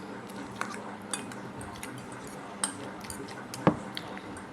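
Cutlery clinking against a plate while eating noodles: a few separate sharp clicks, the loudest near the end.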